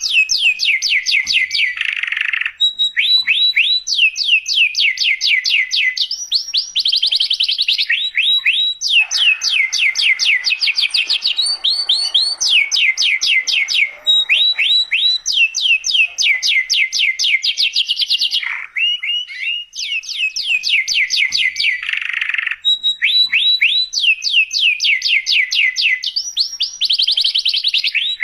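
Domestic canary singing a long, loud song of rolled phrases: fast runs of falling whistled notes, each phrase repeating one note many times a second before switching to another, with a few brief pauses.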